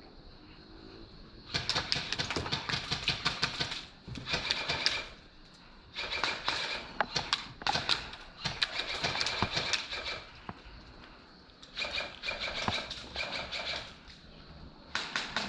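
Airsoft electric gun (AEG) firing full-auto bursts, a rapid clatter of shots with a faint gearbox whine: five bursts, the longest about four seconds, and the last cut short at the end.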